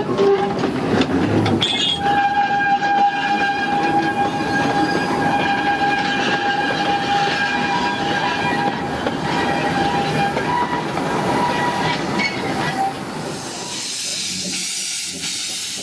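Narrow-gauge steam train running past, its wagons rumbling and clattering along the track, with a long steady high-pitched tone from about two seconds in until near the end. Near the end, steam hissing from a small steam locomotive.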